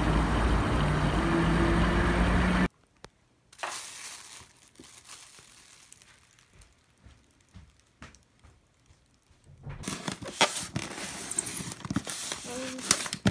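Fuel dispenser running while a car's tank is filled: a steady hum with a couple of held tones that cuts off suddenly after nearly three seconds. After a quiet stretch with light rustling, a box cutter scrapes and crackles as it slices along the taped seam of a styrofoam box from about ten seconds in.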